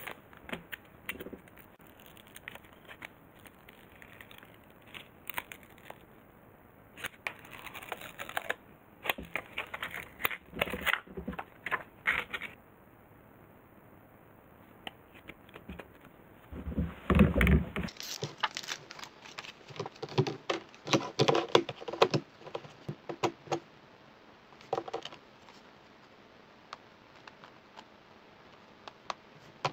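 Hands handling crinkly clear plastic packaging, crackling and rustling in bursts, then a heavy thud about halfway through followed by a quick run of clicks and taps as hard plastic plates are picked up and set down.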